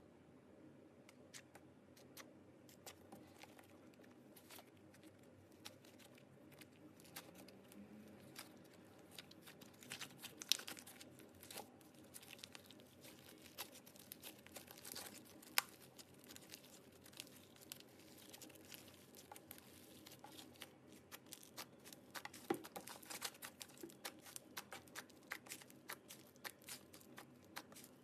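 Slime being kneaded and stretched by hand: faint sticky crackling and small pops, busier in the second half, with a couple of sharper snaps.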